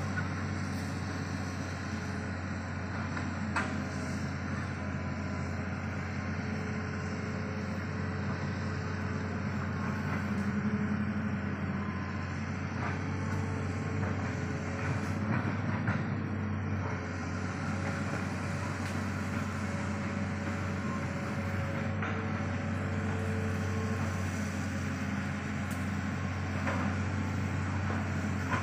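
Steady low engine drone from an idling motorcycle and a Hitachi hydraulic excavator at work on a dirt road, with a few faint knocks.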